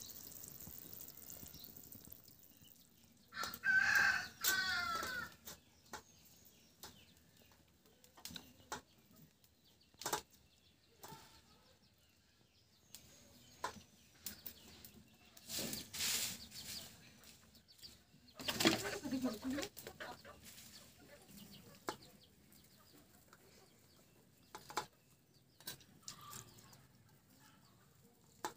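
Chickens calling, with a loud run of wavering calls about four seconds in and another about two-thirds of the way through. Between the calls there are faint scattered clicks and taps, and a faint sizzle from the pan of curry fades out at the start.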